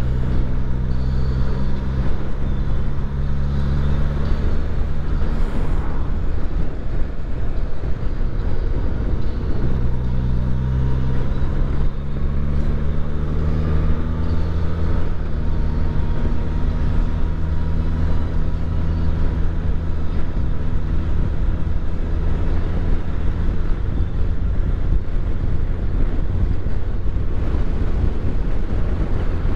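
Motorcycle engine running under way, with wind and road noise. The engine note fades about five seconds in and comes back strongly about four seconds later, then shifts in pitch.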